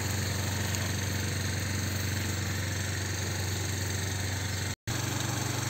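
A small engine running steadily with a low, even hum. The sound drops out for an instant near the end.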